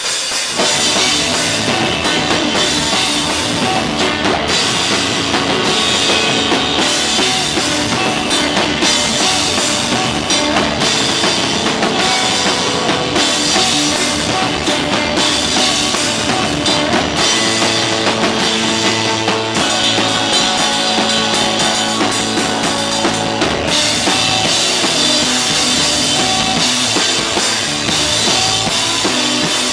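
Rock band playing loud: drum kit with crashing cymbals, electric guitar and bass guitar, with shouted vocals.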